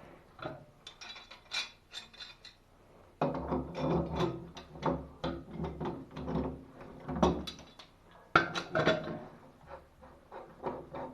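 Metal clicking and scraping as a pipe fitting is worked by hand and tool during a valve change. Irregular clicks grow louder and busier about three seconds in, with a few sharp loud clicks later.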